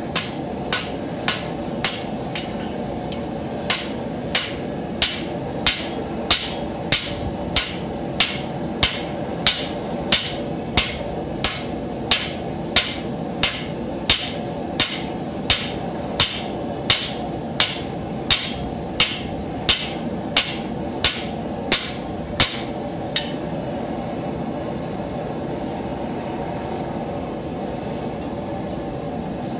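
Hand hammer striking a red-hot steel plow share on an anvil in a steady beat of about three blows every two seconds, each with a bright ring. It pauses briefly near the start and stops about 23 seconds in. The propane forge's burner runs steadily underneath throughout.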